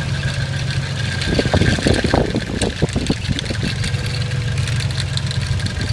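1992 Nissan 240SX's KA24DE four-cylinder engine running with a rattle, a dense patch of irregular strikes from about one to four seconds in over a steady run.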